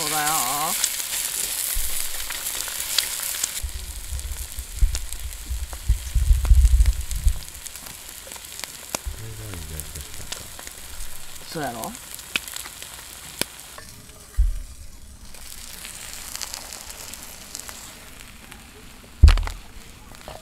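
Eggs sizzling as they fry in a small pan while being stirred with chopsticks. The sizzle is loudest for the first few seconds, then quieter. Scattered low knocks come through, with a sharp loud thump near the end.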